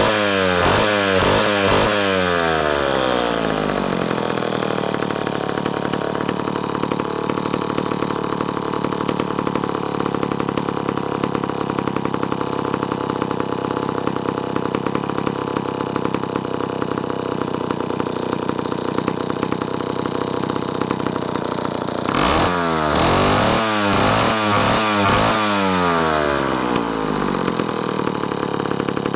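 Homelite 17L gear-drive two-stroke chainsaw revved in a string of quick throttle blips, dropping to a steady idle after a few seconds, then blipped again in a second burst past the middle before settling back to idle. The owner says it is running fat (rich) after not being started in quite a while.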